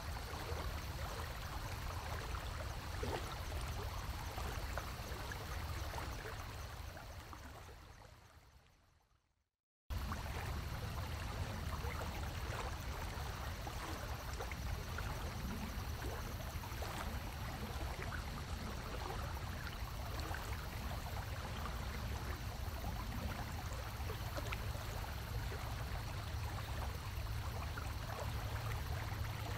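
Steady rush and gurgle of water with a low hum, typical of a large aquarium tank's water circulation. It fades out about eight seconds in, drops to silence briefly, then comes back suddenly and continues evenly.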